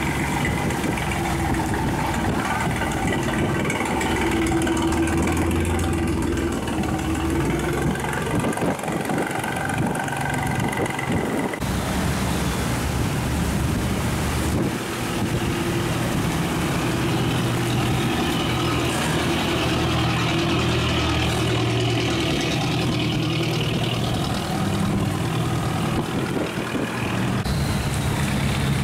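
Engines of river barges running steadily, with several engine pitches heard at once. The sound changes abruptly about twelve seconds in.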